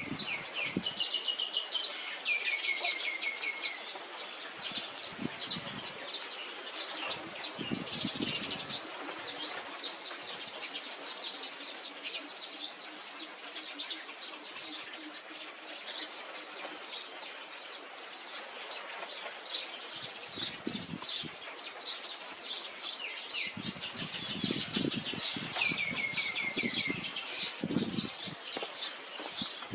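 Weaver birds chattering: fast, continuous high chirps, with a short falling trill twice, about two seconds in and again near the end. Low thuds are scattered through it.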